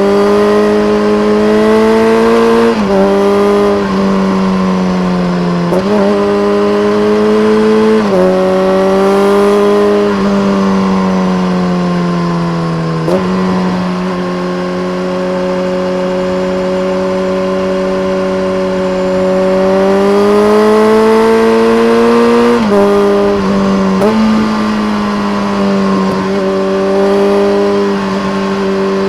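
BMW K1300R inline-four through a full Akrapovic race exhaust with a dB killer, pulling hard with the pitch climbing and then dropping suddenly at each of several gear changes. A long steady stretch in the middle, then it rises again near the end.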